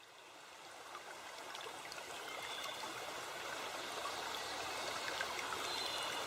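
Nature-ambience recording of flowing water, a steady rushing that fades in from silence and grows louder over the first few seconds.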